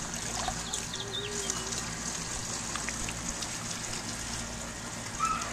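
Pool water lightly splashing and sloshing as a small child paddles through it, steady throughout.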